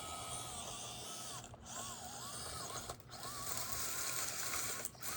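Micro RC crawler's 050-size brushed motor and plastic gear drivetrain whining under load, the pitch wavering and bending with the throttle. It cuts out briefly three times.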